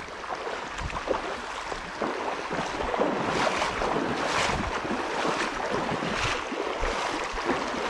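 Someone wading upstream through a shallow creek. Splashing strides come about once a second over the steady rush of the water.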